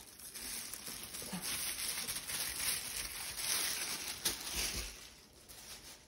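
Thin tissue paper rustling and crinkling as it is pulled off a rolled canvas, dying away near the end.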